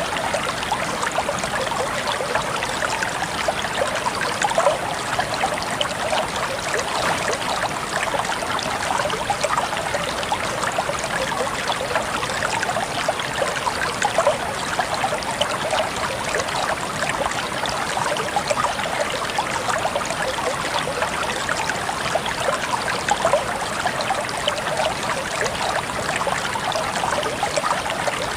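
Small stream of water running and trickling steadily, a continuous bubbling rush.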